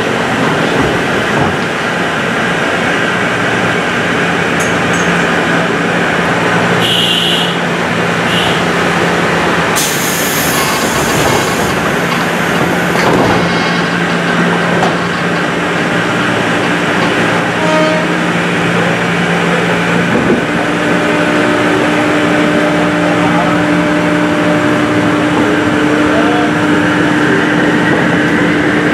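Interior of a 203 series electric commuter train: a steady hum of the car's equipment at standstill, a short burst of hiss about ten seconds in as the doors close, then a slowly rising motor whine near the end as the train pulls away.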